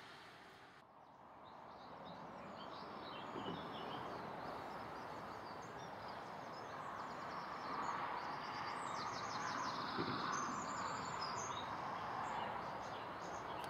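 Small songbirds chirping, with a rapid trill about two-thirds of the way through, over a steady outdoor rushing noise.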